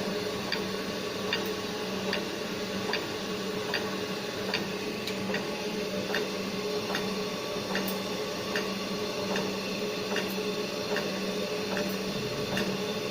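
Automatic circular sawblade grinder running: a steady motor hum with regular clicks, about two a second, as the machine steps the blade from tooth to tooth.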